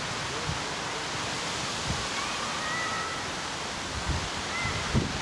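Steady outdoor rushing noise at a football pitch, with a few faint distant shouts and some dull low thumps.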